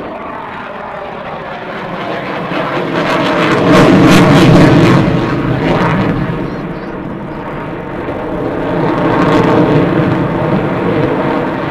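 Airplane engine noise from an aircraft flying a display pass. It swells to its loudest about four seconds in, fades, then rises again, less strongly, near the end.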